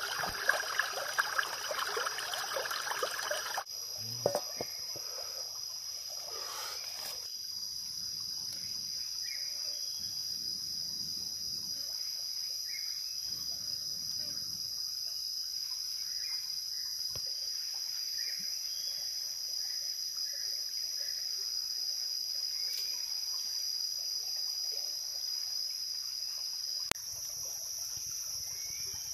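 Steady high-pitched chorus of jungle insects. For the first three and a half seconds a shallow stream ripples over rocks beneath it, then cuts off abruptly.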